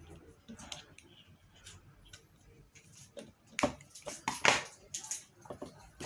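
Scissors snipping through a hair dryer's switch wires, with light metallic clicks and a few sharp snips in the second half: the failed switch is being cut out so the dryer can be wired direct.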